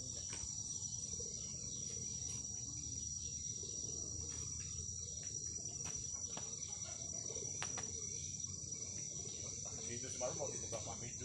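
Steady, high-pitched shrilling of an insect chorus, with a few light knocks.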